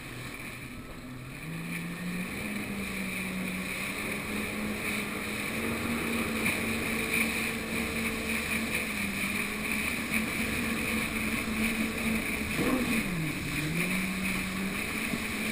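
Jet ski engine running at speed over a steady rush of wind and water spray. Its note rises over the first couple of seconds, then about thirteen seconds in it drops and climbs back again.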